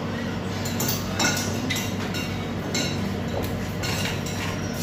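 Plates and cutlery clinking now and then, a string of short sharp clinks over a steady low hum of a crowded eating room.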